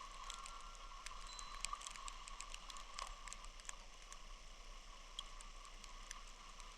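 Snowstorm ambience: faint, scattered ticks and pattering of snow striking surfaces over a steady soft hiss.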